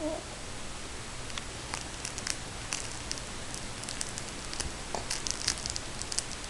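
A baby hiccups once at the very start, followed by scattered faint crackling and rustling clicks.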